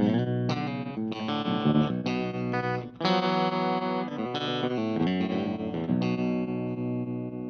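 PRS baritone electric guitar played clean through a Space Sounds Cosmic Tremolo pedal on its faster speed setting: a run of picked notes and chords whose volume pulses with the tremolo, ending on a chord left to ring about six seconds in.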